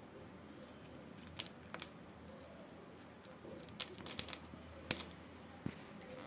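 Shards of a broken fired clay pot dropped onto a stone floor, clinking sharply as they land, in a scattered run of about nine clinks.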